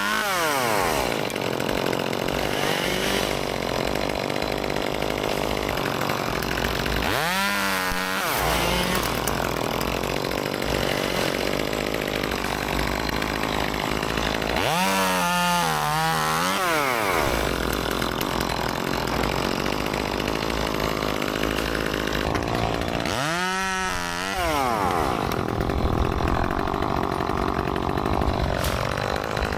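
Gas chainsaw cutting wood, its engine revving up and dropping back about every seven or eight seconds, five times in all.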